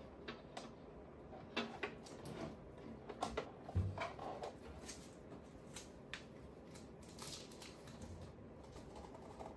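Scattered light clicks, taps and rustles of plastic being handled as Bambu Lab AMS filament units are shifted and set in place, with a dull thump about four seconds in and a softer one near the end.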